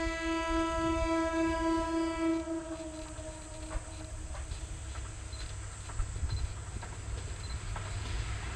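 A diesel railcar's horn sounds once, one steady note held for about two and a half seconds and then fading. It is followed by the train's low rumble with a few faint clicks.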